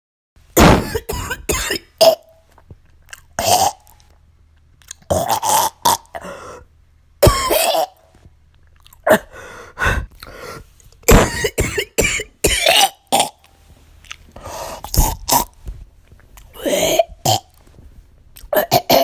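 A girl coughing in short, wet, phlegmy fits with gagging, about nine bursts separated by pauses of a second or so: a productive cough bringing up mucus.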